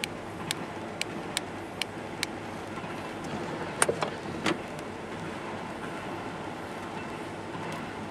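Steady rumble and hiss of a passing freight train and rain, heard from inside a car. Sharp taps of raindrops on the car come about twice a second for the first two seconds, and a louder cluster of taps comes about four seconds in.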